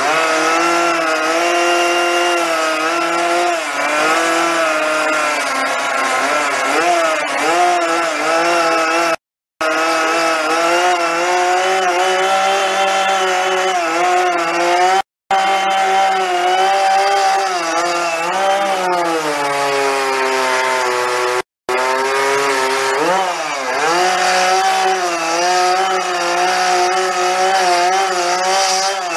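Chainsaw running while carving wood, its engine pitch repeatedly dipping and rising as the bar is pressed into the wood and eased off. The sound drops out briefly three times, about a third, half and three-quarters of the way through.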